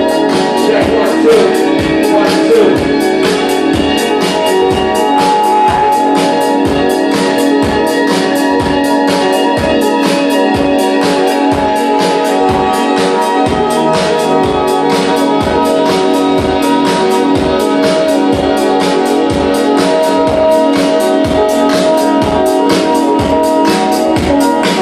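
Dance music with a steady kick drum about twice a second under sustained keyboard chords.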